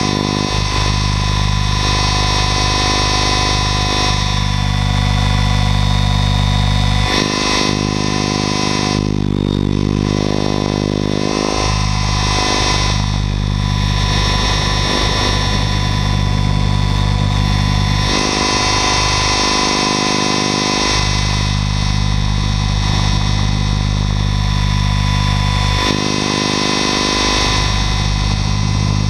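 Mikado Logo 800 Xtreme RC helicopter's electric drive and main rotor, heard close up from on board: a loud, steady whine with several pitches at once, dipping and gliding back in pitch several times as it manoeuvres.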